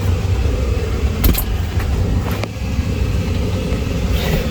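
Hyundai truck's engine running with a steady low rumble, with a couple of short clicks about one and two seconds in.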